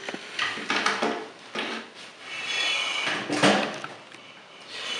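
Hard plastic toy figures being handled and set down on a tabletop: scattered light clicks and knocks with some scraping, and a sharper knock about three and a half seconds in.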